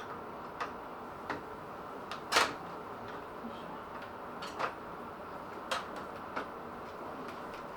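About half a dozen light clicks and knocks as a bottom fan bracket is pushed and seated into a PC case, the loudest about two and a half seconds in, over a faint steady hiss.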